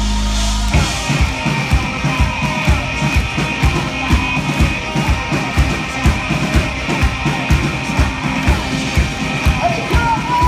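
Rock band playing live on stage. A held low synth and bass note gives way, under a second in, to the full band with a driving drum beat of about four kicks a second.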